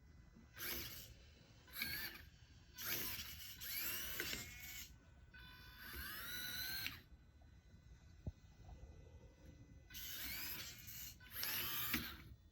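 Small geared electric motors of a micro:bit Cutebot Pro robot car whirring in about seven short bursts, the whine rising and falling in pitch as the motors speed up and slow down under remote control. A single sharp click about eight seconds in.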